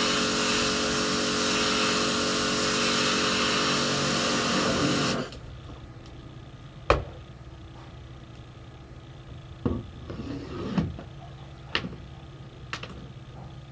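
Pressure washer running, its motor humming under the hiss of the spray, then cutting off suddenly about five seconds in. After that come a few sharp knocks and clicks.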